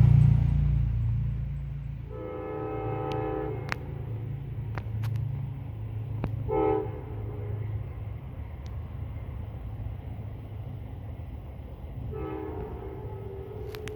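Distant Amtrak locomotive's K5LA five-chime air horn sounding a grade-crossing signal. The end of one blast is followed by a second long blast, a short one, and a final long blast beginning near the end, over a low rumble.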